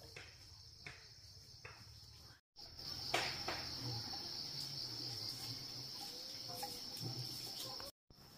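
Crickets trilling steadily in a high, even drone, with a sharp knock about three seconds in and a few faint clicks. The sound breaks off completely twice for a moment.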